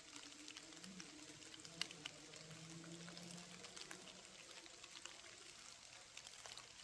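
Near silence: faint background with scattered small ticks and a few faint, wavering low tones.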